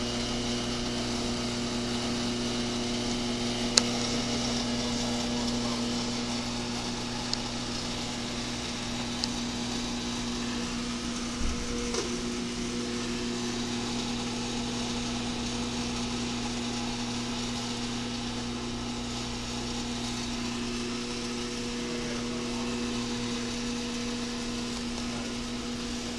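Steady electric motor hum with a low drone from the A/C trainer and refrigerant recovery/recharge machine running, with a sharp click about four seconds in and a few light knocks around the middle.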